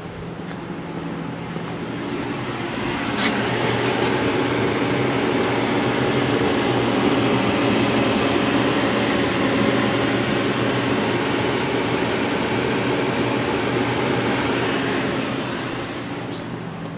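Steady hum of a powered-up 1995 Haas VF0 vertical machining center and its cooling fans, with several steady tones under a rushing fan noise. It swells about three seconds in, with a click at that moment, and eases off near the end.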